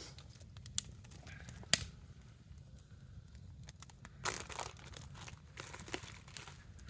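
Bag or packaging being handled: crinkling and rustling with scattered small clicks, one sharp click a little under two seconds in, and a louder rustle about four seconds in.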